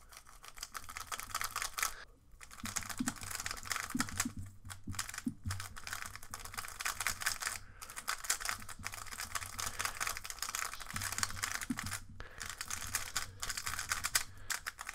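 MoYu RS3M 2020 magnetic 3x3 speedcube with the Angstrom factory-lubed setup being turned fast by hand: quick runs of plastic clicks and clacks from the layers, with a couple of brief pauses.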